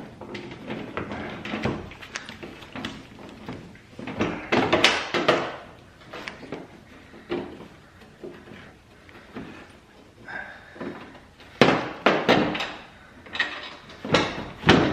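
Irregular clicks and knocks of a socket wrench working loose a headlamp mounting bolt on a Toyota Sienna, metal tool against the bolt and the plastic around it, with a busy stretch of clicking partway through and a few sharp knocks near the end.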